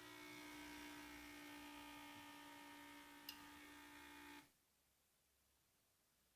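Small vibration motor of a wireless anti-supine positional sensor buzzing steadily, its alarm for lying face up. There is a light click about three seconds in, and the buzz cuts off suddenly about four and a half seconds in.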